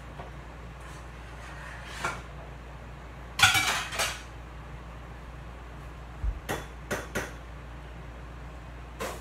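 Dishes and cutlery clattering as they are handled at a kitchen counter: a loud cluster of clinks about three and a half seconds in, a few more clinks around six to seven seconds, and one more near the end, over a steady low hum.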